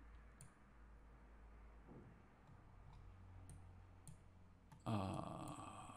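A few faint computer mouse clicks over low room noise. About five seconds in, a louder held vocal sound starts and continues.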